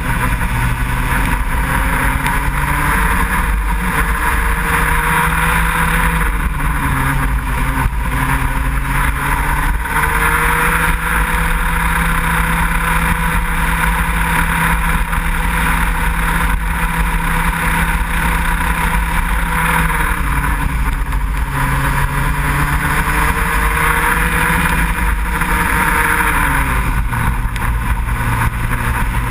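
Racing go-kart engine heard from on board at speed, its pitch dropping twice as it slows for corners and climbing again as it accelerates out, over a steady hiss.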